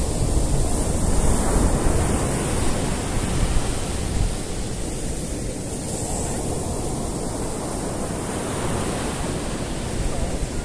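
Rough surf breaking and washing up a sandy beach, a steady rush of churning water with wind buffeting the microphone.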